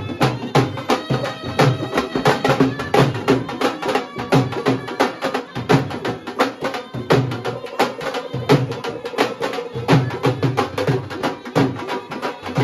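Several dhol drums beaten with sticks in a fast, steady folk rhythm, with a wind instrument holding long notes over the drumming.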